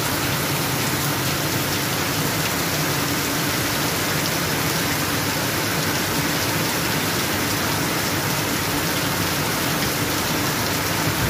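Rain falling steadily and densely on trees and open ground, a continuous even hiss that does not let up.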